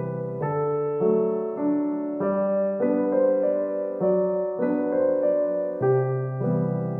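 Background piano music: a gentle tune of notes and chords changing about every half second.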